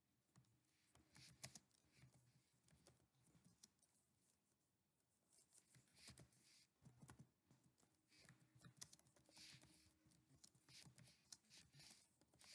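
Faint computer keyboard typing: irregular runs of key clicks, with a pause of about a second and a half a little before the middle.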